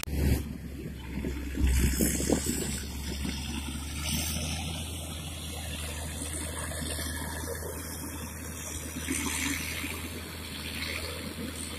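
Wind noise on the microphone, gusting loudest in the first two or three seconds, over the steady low hum of a Caterpillar motor grader's diesel engine at work.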